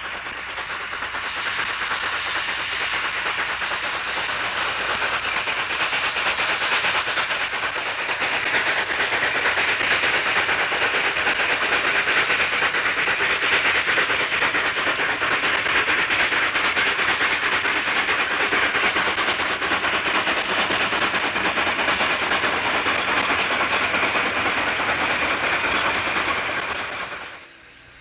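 Rio Grande narrow gauge steam locomotive working with a freight train: a steady noise of steam exhaust and rolling cars that grows louder over the first dozen seconds, holds, and fades out near the end.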